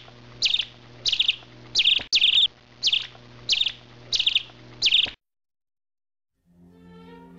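Cricket chirping: short pulsed chirps about every 0.7 s, which stop abruptly about five seconds in. Soft string music comes in near the end.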